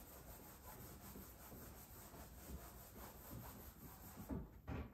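Eraser wiping across a whiteboard: faint, repeated rubbing strokes, with a few louder ones near the end.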